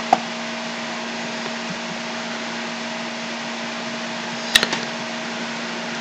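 Computer mouse clicking: a sharp double click right at the start, then a short run of clicks about four and a half seconds in. Under it runs a steady microphone hiss with a low hum.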